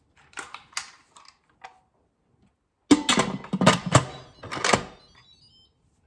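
Instant Pot pressure-cooker lid being set on and twisted shut: a few light clicks, then about three seconds in a run of sharp plastic-and-metal clunks and clicks that dies away a little before the end.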